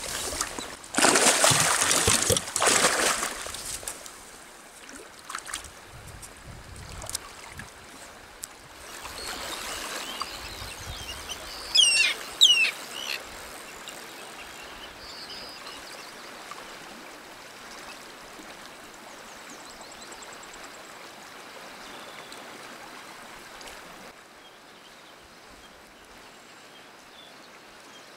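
A lake trout released by hand into shallow water, with a couple of seconds of splashing near the start. After that comes a faint steady trickle of flowing water, and a short chirping bird call about twelve seconds in.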